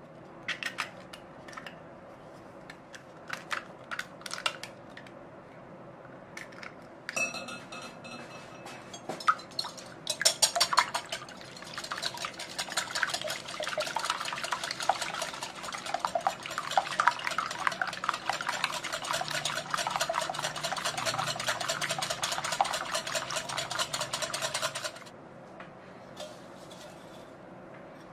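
Eggs cracked into a glass bowl, giving a few sharp taps and clinks, then a metal wire whisk beating the eggs by hand in the glass bowl. The wires click rapidly against the glass for about fifteen seconds and stop suddenly near the end.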